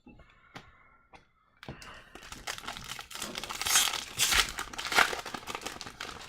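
A hockey card pack wrapper being torn open and crinkled, starting about two seconds in and loudest in the middle, after a few faint clicks of card handling.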